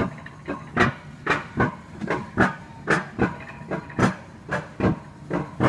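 Alpine coaster sled being hauled up the lift section of its metal-rail track, clacking about twice a second over a low steady hum.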